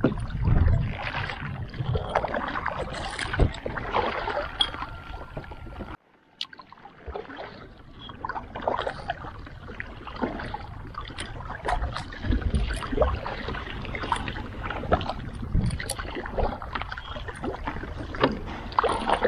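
Kayak paddle strokes splashing and dripping, with water lapping against the hull. The sound breaks off for a moment about six seconds in, then carries on.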